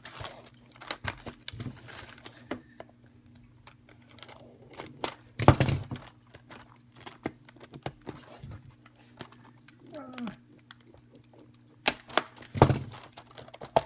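The wrapping of a sealed Pokémon booster box being picked at and opened by hand: crinkling plastic, scratching and small clicks, with two louder rustling tears, one about halfway through and one near the end.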